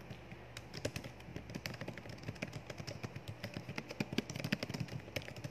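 Rapid, irregular clicking and clattering over a low steady hum.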